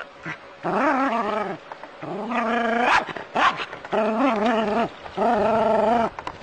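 Small white-and-black dog barking at a snake in the water: four long, wavering, drawn-out barks, each close to a second, with short gaps between them.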